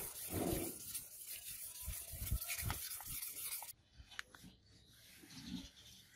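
600-grit sandpaper rubbed by hand back and forth along a steel katana blade: a rasping scrape with a dull knock on each stroke. About four seconds in it cuts off abruptly to faint rubbing of a cloth wiping the blade.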